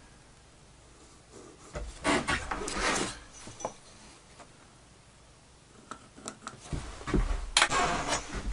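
Wooden parts rubbing and scraping on plywood while holes are being marked, with a longer scrape about two seconds in. Near the end comes a knock, as a wooden part is set down on the board.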